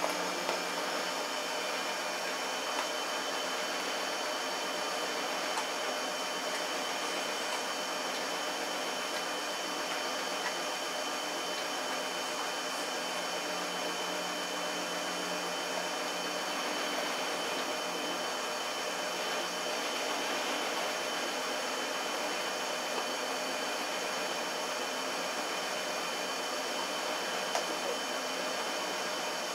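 A steady whirring hiss like a fan or household appliance running, with a few faint crunches from a Shar-Pei puppy chewing raw chicken ribs.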